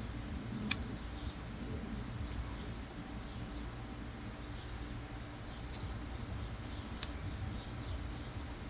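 A sharp metallic click about a second in, then two fainter clicks near the end, over a steady low hum: the blade of a handmade slipjoint folding knife snapping against its back spring as it is worked through the half stop.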